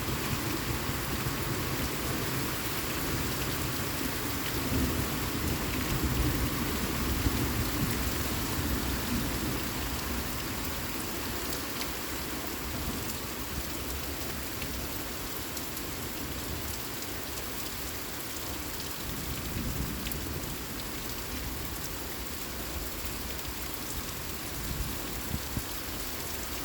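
Steady rain falling, with a low rumble of thunder swelling and fading over the first half.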